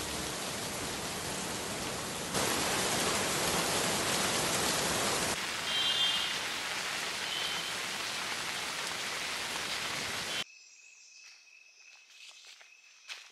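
Steady monsoon rain falling on a pine forest, a continuous hiss. It cuts off suddenly about ten seconds in, leaving a quiet forest with faint footsteps on a leaf-covered trail near the end.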